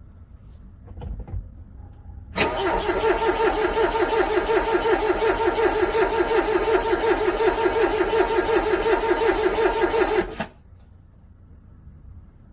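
Car engine cranking on its starter in freezing cold, a steady rhythmic churn of about five beats a second for roughly eight seconds. It cuts off suddenly without the engine catching: a cold engine failing to start. A short knock comes about a second in, before the cranking.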